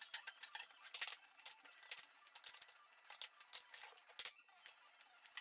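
Irregular light clicks and knocks of thin wooden strips being handled and set down against each other on a wooden workbench, a few taps a second, thinning out near the end.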